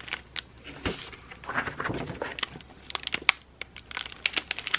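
Breadstick wrapper crinkling as it is handled and turned in the hands: irregular small crackles and clicks, busiest in the second half.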